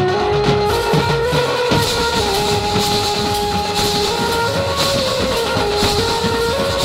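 Indian band-baja tasha party playing: drums beaten in a fast, busy rhythm with metallic cymbal-like crashes, under a melody of held notes that step up and down.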